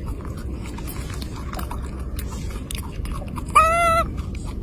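Small clicks and smacks over a steady low rumble as a baby macaque takes and handles fruit offered by hand. About three and a half seconds in comes one short, high call that rises and then falls, lasting about half a second.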